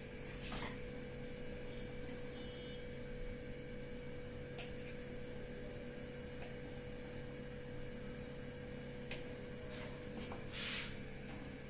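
Steady electrical hum, with a few faint sharp taps and one short scrape of a knife cutting rolled dough on a granite counter.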